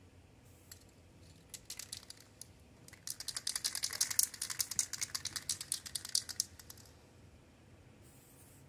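Aerosol spray paint can being shaken, its mixing ball rattling: a few knocks, then fast steady rattling for about four seconds. Near the end comes a brief faint hiss of paint spraying.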